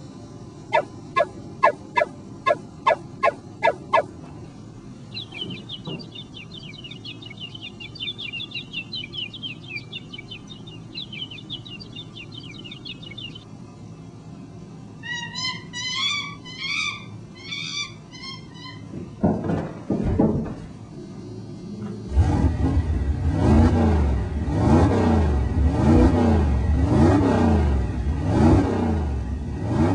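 A string of unrelated sound effects: about ten sharp clicks, a high warbling trill, short bird-like chirping calls and a quick whoosh. About 22 seconds in, a loud engine-like sound starts that rises and falls in pitch over and over, like a car revving.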